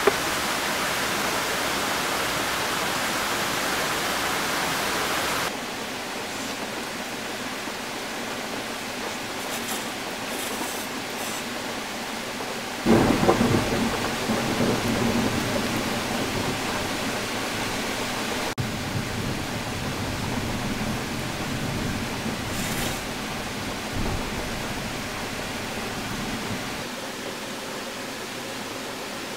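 Heavy rain falling steadily, with a sudden clap of thunder about 13 seconds in that rumbles on and fades over several seconds.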